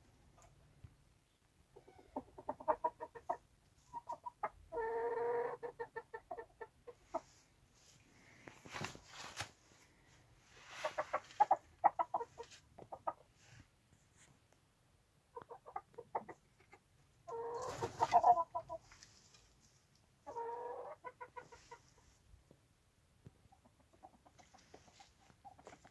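Chickens clucking in short runs of rapid clucks with pauses between, and a few brief scratchy noises in between.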